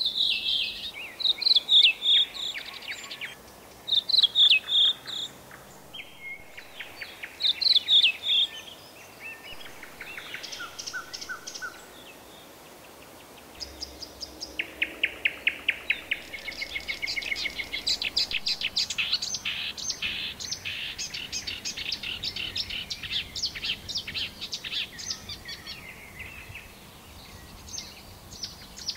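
Thrush nightingale singing in short phrases of repeated notes separated by pauses, then, from about halfway, a long run of fast, rapidly repeated clicking notes.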